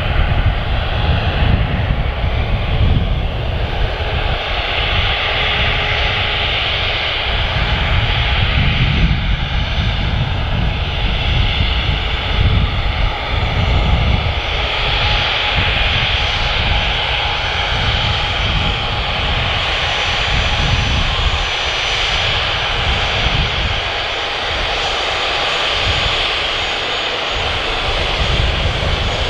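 Dassault Falcon 7X business jet taxiing, its three Pratt & Whitney Canada PW307A turbofans running at low taxi power: a steady jet rush and low rumble with a faint high whine.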